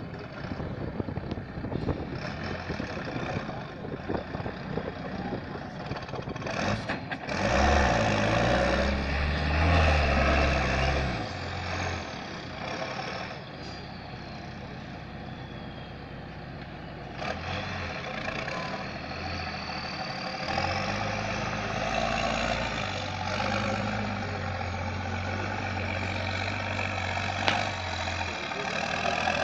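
Six-wheeled trial truck's engine running under heavy load as it crawls over an obstacle, surging loud about a quarter of the way in and again in the last third. A high whine slides down and later up.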